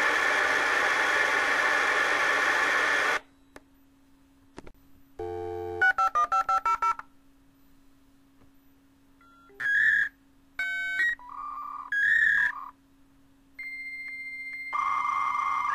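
Dial-up modem connecting over a phone line. A loud hissing handshake screech cuts off about three seconds in. Then come a short tone, a quick run of about seven touch-tone dialing beeps, several bursts of beeping tones and a steady high answer tone, and the hissing handshake screech starts again near the end.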